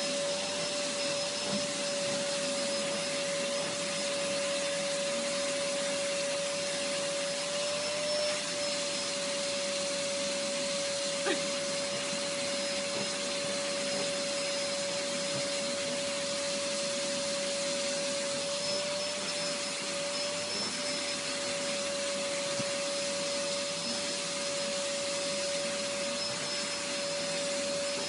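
Vacuum cleaner running steadily as its hose is drawn over a cat's fur: an even rushing noise with a steady whining tone that wavers slightly now and then. There is a small click about eleven seconds in.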